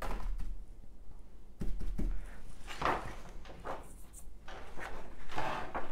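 Scattered soft taps and rustles of stencil work: a stiff-bristled stencil brush being loaded with paint and pounced, with materials being handled, in a few irregular bursts.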